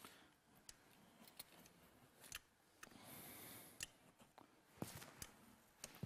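Near silence, with a few faint, scattered clicks from a hand caulking gun as a bead of sealant is pressed out along a membrane seam.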